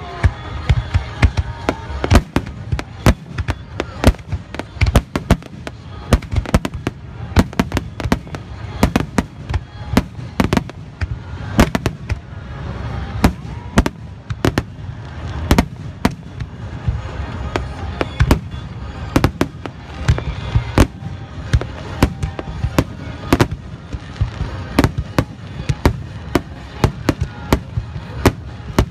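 Aerial fireworks shells bursting in a dense barrage, with sharp booms often two or three a second over a continuous low rumble and crackle.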